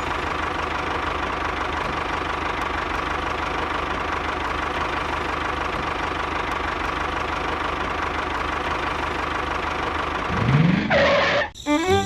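A small engine or motor running steadily at a constant pitch. Near the end a brief sweep rises and falls in pitch.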